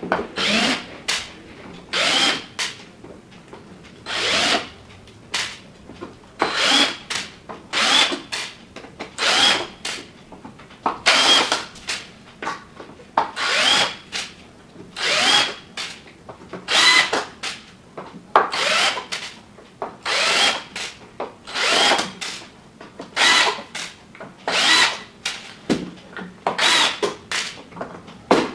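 Cordless drill-driver whirring in short bursts, about one every second and a half, as it backs out the screws of an electric scooter's bottom deck cover one after another.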